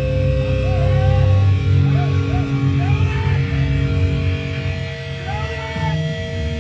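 Distorted electric guitars and bass through loud amplifiers, droning on held notes with short bending squeals of feedback, no drums keeping time.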